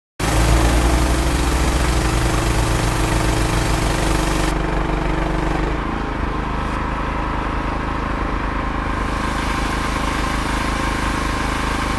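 Gas-engine pressure washer running, with the hiss of its water jet blasting concrete. About four and a half seconds in the spray stops and the hiss falls away. The engine keeps running, its note changing shortly after.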